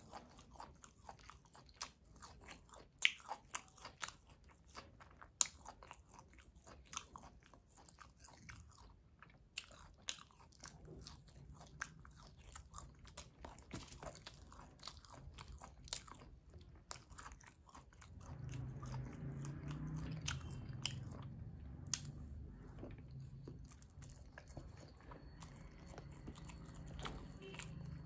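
Close-miked chewing of mutton biryani eaten by hand, with many small mouth clicks and bites. About two-thirds of the way in, a steady low hum comes up underneath.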